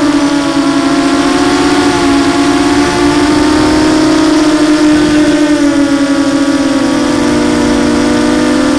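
Blackout Mini H FPV quadcopter's brushless motors and propellers whining steadily, heard from its onboard camera. The pitch wavers slightly and dips a little from about halfway through as the quad eases off.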